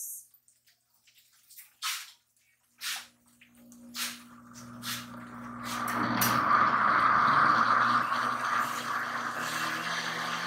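Red enchilada sauce hitting a hot skillet of browned ground beef and sizzling steadily over a low hum, after a few light knocks from handling the opened can. The sizzle builds over a couple of seconds, holds steady, then cuts off suddenly near the end.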